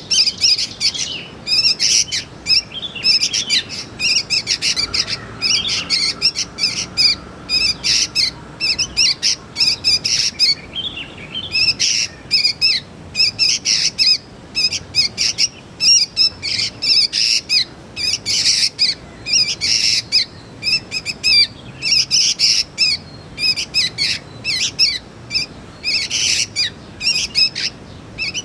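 Young sooty-headed bulbul (kutilang) calling in a fast, continuous stream of short, high chirps, with a brief lull about eleven seconds in.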